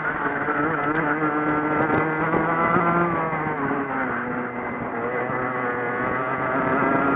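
Racing kart engine heard from on board, running hard at high revs. The pitch falls as the kart slows through a bend about halfway, then rises again as it accelerates out near the end.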